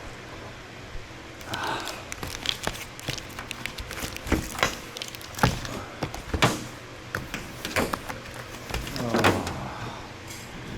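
Irregular knocks and clunks on a van's roof and its steel Unistrut roof rack, a dozen or so sharp strikes at uneven spacing.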